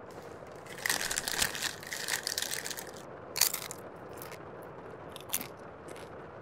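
Bag of chips crinkling for a couple of seconds, then a few short crunches as the chips are chewed.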